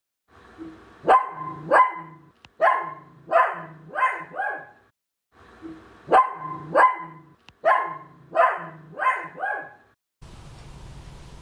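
Poodle barking: two runs of about six quick barks each, separated by a short pause of a second or so.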